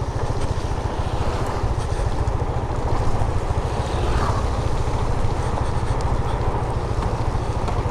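Motorcycle engine running steadily while riding, with a fast even low throb under a constant rush of wind and road noise.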